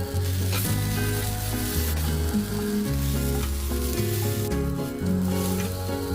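Marinated soya chunks sizzling and crackling as they fry in a hot pan, stirred now and then. Background music with a steady bassline plays underneath.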